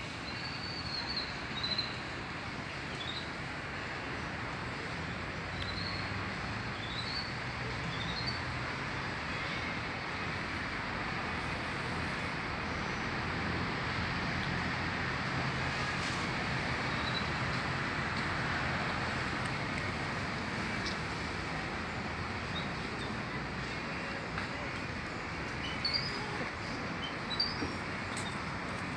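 Small birds giving short, high chirps now and then, a few at a time, over a steady background rush like distant traffic.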